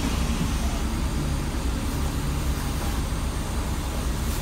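Transit bus engine idling at a stop, heard from inside the cabin as a steady low rumble.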